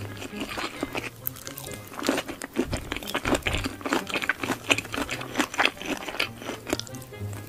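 Close-miked crunching and chewing of crispy fried shrimp in a creamy sauce: quick, crackly crunches, thickest from about two seconds in.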